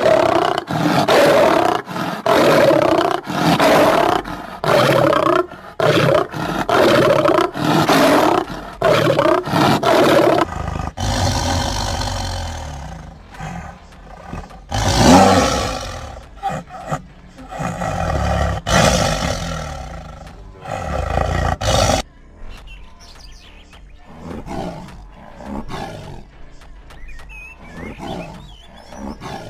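Wild animal vocalizations. First comes a run of loud calls, repeated about once a second. From about ten seconds in there are deep, drawn-out roars, and after about 22 s quieter, scattered calls.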